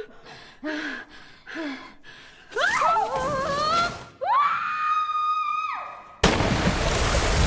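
Young women screaming: two voices rising together about two and a half seconds in, then one long held scream that falls away. About six seconds in comes a sudden loud splash as bodies plunge into a pool of water.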